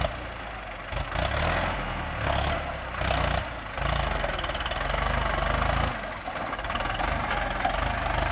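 Ford 6610 tractor's four-cylinder diesel engine running under load while pulling a disc plough through dry, stony soil. Its low rumble rises and falls a few times over a steady gritty noise.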